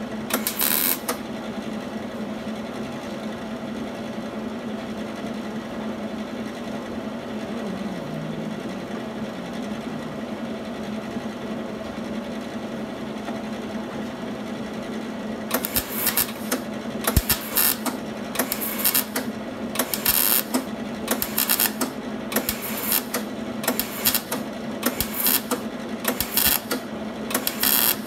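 MIG welder stitch-welding car-body sheet metal in short crackling bursts: one burst just after the start, a long pause with only a steady hum, then from about halfway a quick run of short bursts, roughly two a second.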